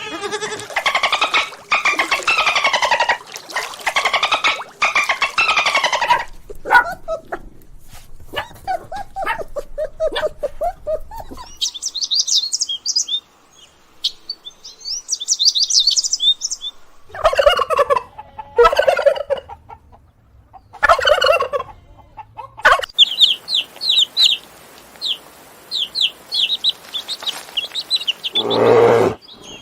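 A run of different animal calls, one clip after another: repeated pitched calls, then bursts of high, quick bird chirping twice, with more pitched calls in between and a new lower call starting near the end.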